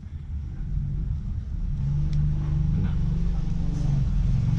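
A motor vehicle passing on the road, its engine a low rumble that builds about a second and a half in and stays steady.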